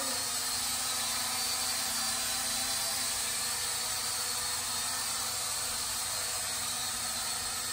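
Small toy quadcopter drone hovering, its propellers and motors giving a steady whirring buzz at an even level.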